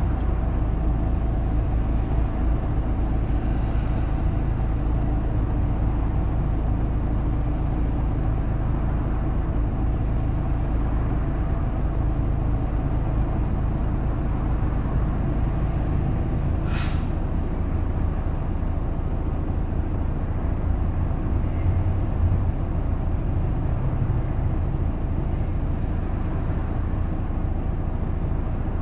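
Isuzu KK-LR233J1 city bus under way, heard from inside the cabin: a steady diesel engine drone with road noise, and a short hiss of compressed air about 17 seconds in.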